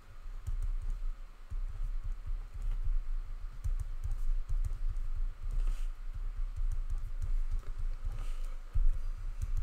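A pen writing on paper laid on a desk: a quick, irregular run of soft knocks from the pen strokes on the tabletop, with faint scratching of the tip.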